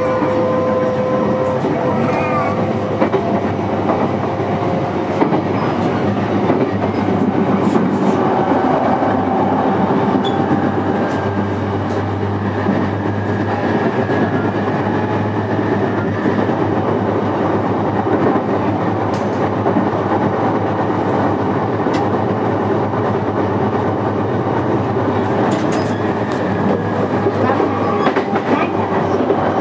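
Running noise heard inside a JR East E233 series electric motor car at speed: wheels running on the rails with clickety-clack over rail joints, under the steady whine of the VVVF inverter and traction motors.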